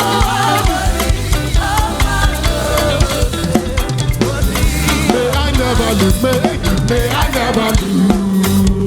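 Upbeat live praise band music: a drum kit with snare and bass drum keeps a steady beat under a moving bass line and pitched melody parts.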